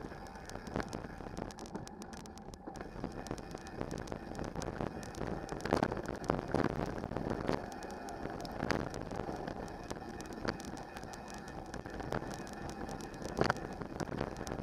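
Trek Stache 7 mountain bike riding a rocky dirt trail: tyres crunching over gravel and stones under a steady rush of wind on the microphone, with irregular knocks and rattles from the bike as it hits rocks. The knocks come thickest around the middle of the stretch and again near the end.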